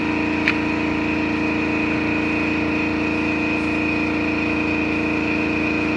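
Shop air compressor running steadily with an even motor hum. There is a single sharp click about half a second in.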